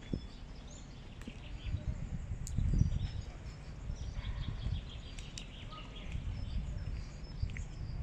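Small birds chirping and singing in the trees, many short calls throughout, over a low, uneven rumble that swells about three seconds in.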